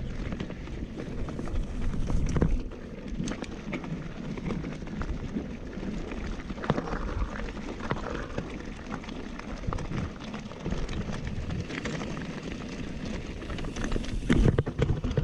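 Nukeproof Mega 297 mountain bike rolling over a rocky, gravelly trail: tyres crunching over loose stone, with steady low rumble and many small rattles and knocks from the bike. The knocks get louder and denser near the end as it rolls onto rough rock.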